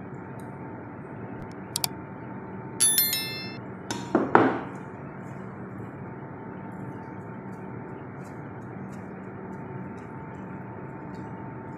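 Kitchenware clinking: one short ringing clink about three seconds in, then a couple of sharp knocks about a second later, over a steady background hiss and low hum.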